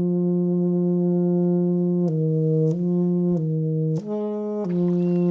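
Background music of low, sustained brass-like notes. One note is held for about two seconds, then the pitch steps up and down several times.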